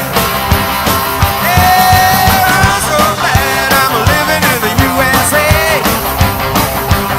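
Rock and roll band playing live: an instrumental stretch, with a lead line of long held notes that bend in pitch over a steady beat.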